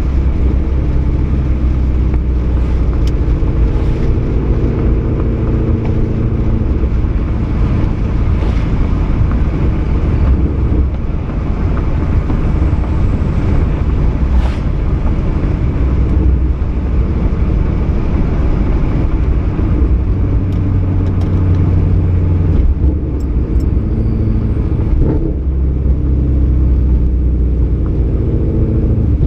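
Ford Mustang 5.0 V8 running down the road through a Roush axle-back exhaust with an off-road X-pipe, a continuous deep exhaust rumble. The note holds steady in some stretches and turns rougher in others.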